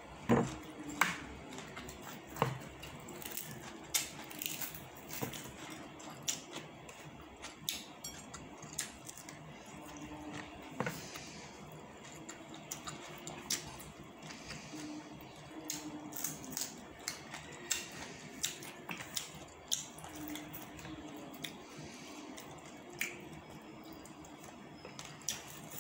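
Close-up eating sounds: raw lettuce leaves being bitten and chewed, with irregular crisp crunches and wet mouth sounds.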